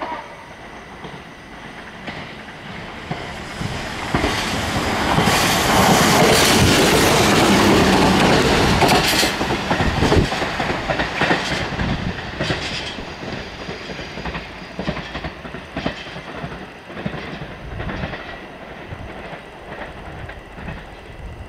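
Shinano Railway SR1 series electric train running through a station without stopping: its running noise grows from about three seconds in and is loudest for about four seconds. It then fades away, with a string of wheel clicks over the rail joints.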